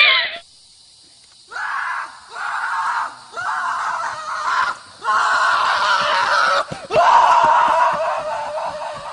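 A series of five loud, hoarse screams with short gaps between them, starting about a second and a half in; the last one is the longest and loudest.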